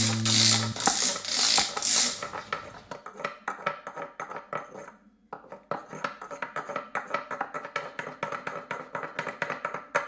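A strummed guitar note dies away, then comes a rapid run of small, sharp taps and clicks on a hard object, several a second, with a short pause about five seconds in.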